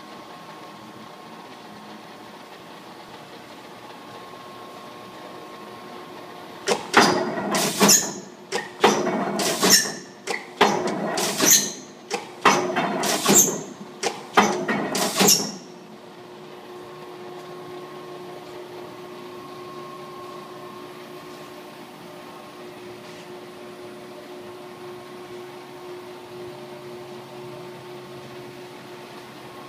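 Bautar OBI punch press with air clutch running: a steady motor and flywheel hum. From about seven seconds in it cycles five times, about one stroke every two seconds, each stroke a loud noisy burst ending in a sharp hit, then it goes back to the steady hum.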